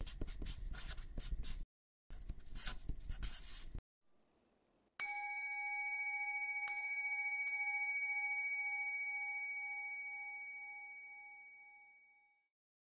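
Two scratchy brushing sounds of about two seconds each. Then, about five seconds in, a meditation bowl bell is struck once and rings in several steady tones, the lowest wavering slowly, fading out over about seven seconds.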